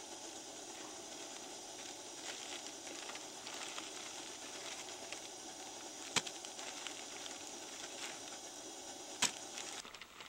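Camp stove hissing steadily with light crackling, and two sharp clicks, one about six seconds in and one about nine seconds in. The hiss cuts off suddenly just before the end.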